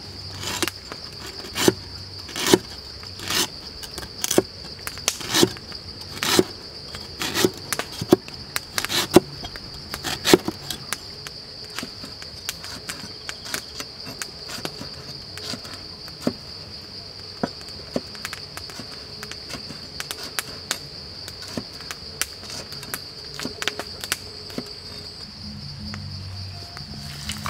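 Heavy cleaver chopping on a wooden board, with sharp knocks about once a second for the first ten seconds, then lighter, irregular cuts. A steady high-pitched insect drone runs underneath.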